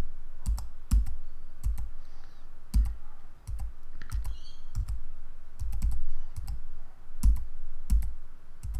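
Computer keyboard keys pressed one at a time, about two clicks a second, each with a dull thump: the down-arrow key stepping through image previews.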